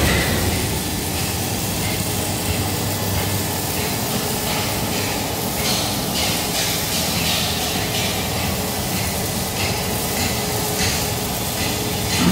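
Steady factory machinery running noise, with a run of short hisses through the middle.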